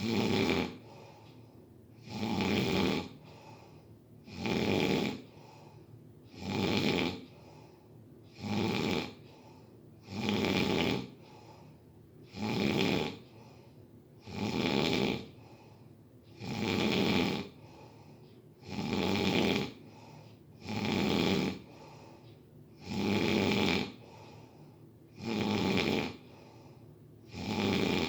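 Steady rhythmic snoring, one snore about every two seconds, each lasting under a second.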